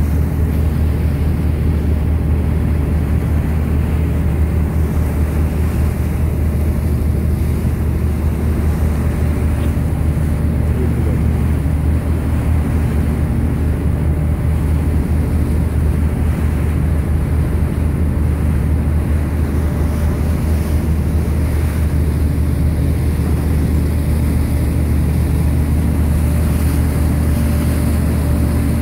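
Tour boat's engine running steadily, a constant low drone, with water and wind noise over it.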